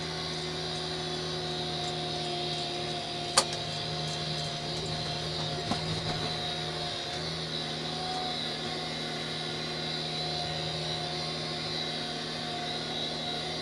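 Tractor engine running steadily, driving a hay tedder through the field, with one sharp click about three seconds in.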